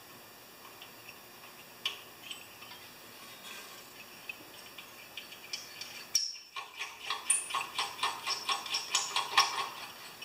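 Small metal clicks and rattles of M5 nuts being worked onto the muffler studs of a Honda GX390. There are a few scattered ticks, then about six seconds in a quick run of clicks, several a second, takes over.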